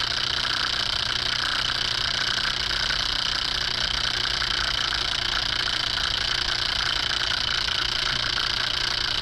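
A homemade generator built from a sump pump stator coil, spun by a small DC motor and powering a 12-volt fan, running with a steady mechanical whir and low hum.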